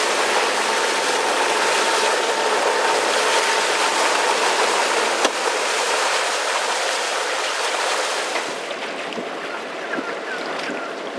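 Water rushing and splashing along the hull of a sailing yacht underway, with wind on the microphone. The rush drops to a quieter wash about eight and a half seconds in.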